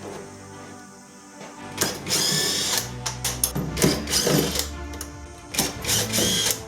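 A power drill-driver runs in several short bursts of a second or less, as used to take apart a washing machine. Background music plays under it.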